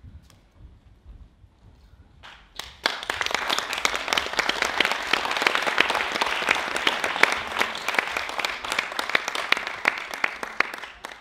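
Audience applauding: the clapping breaks out suddenly about three seconds in, holds dense and even, and dies away near the end.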